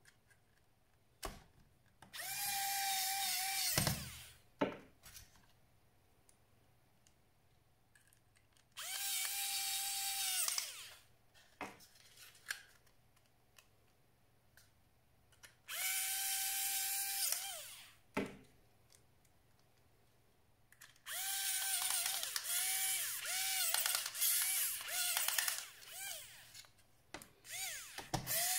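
Small electric screwdriver working laptop screws: it runs three times for about two seconds each, with the pitch sagging as each run stops, then in a string of short stop-start bursts near the end. Light clicks fall in the quiet gaps.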